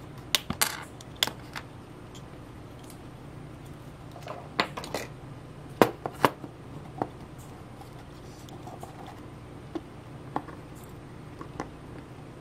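Sharp clicks and snaps of a small hand cutter and tiny plastic parts being handled, single and in small clusters, the loudest about half a second in and again around five to six seconds in. A faint steady hum runs underneath.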